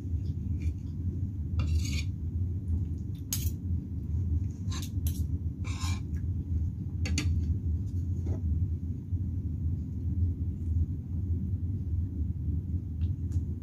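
Metal fork and spoon clinking and scraping against a ceramic plate, a scattering of short separate clinks over a steady low rumble.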